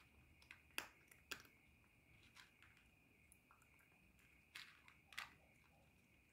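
Calico cat crunching dry kibble from a plastic bowl: a few faint, irregular crunches, loudest about a second in and again about five seconds in.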